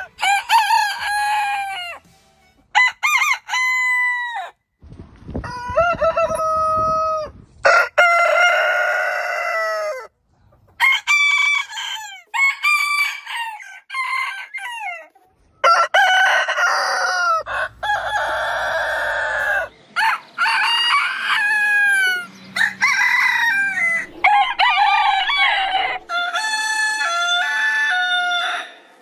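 Roosters crowing, about a dozen crows in quick succession, each rising and then trailing off, with abrupt cuts between them and changes in pitch from one crow to the next.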